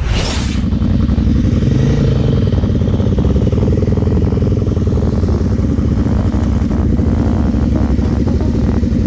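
Kawasaki KFX 700 quad's V-twin engine idling steadily, heard close up. A short swoosh sounds at the very start.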